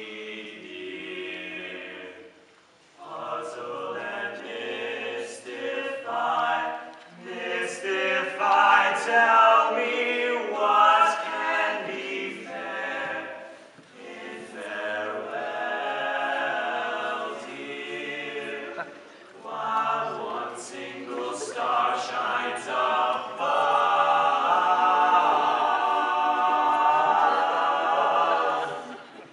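Male barbershop quartet singing close four-part harmony a cappella, in sustained phrases with short breaks between them.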